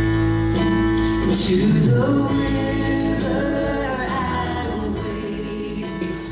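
A live worship band plays a song with guitars, and a man's voice leads the singing.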